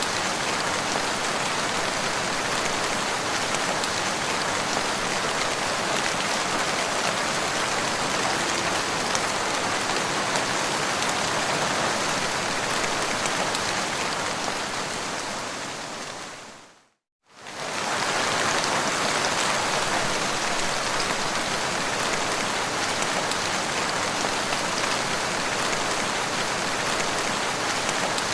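Steady rain falling on the ground, an even dense patter. About two-thirds of the way through it fades out to a moment of silence and straight back in.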